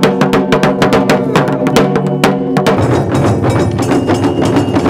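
Japanese taiko drums struck with sticks in a fast, driving rhythm of about six beats a second, over a steady held tone; about halfway through the beats thicken into a denser roll.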